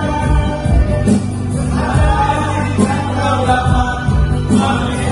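Men singing together into microphones over a live band, holding long notes that change about once a second above a steady bass line and occasional drum strikes.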